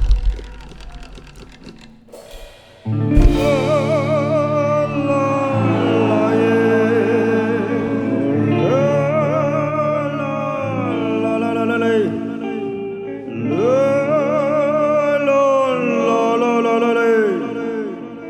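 A rock band plays live. The loud band stops abruptly, followed by a few quieter seconds. About three seconds in, a sustained chord enters with a long, wavering melody line held over it.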